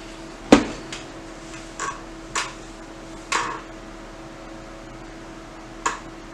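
A steady electrical hum with fan-like noise under it, broken by about six short knocks and clacks of things being handled; the loudest knock comes about half a second in.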